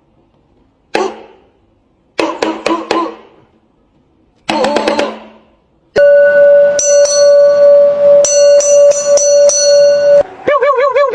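A string of short electronic sound effects: a single click, two quick clattering drum-like rattles, a long steady electronic tone with higher pinging notes over it, then a warbling tone that slides down at the end.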